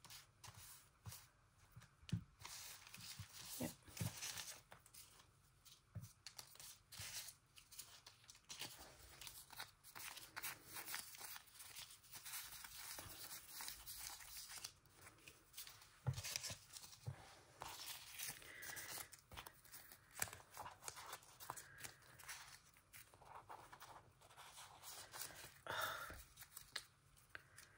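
Faint rustling and crinkling of paper die-cut stickers being sorted by hand, with small peeling and tearing sounds and scattered light clicks.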